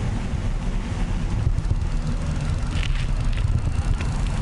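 Steady low rumble of a bicycle in motion on pavement: wind on the microphone and tyre noise, with a few faint ticks about three seconds in.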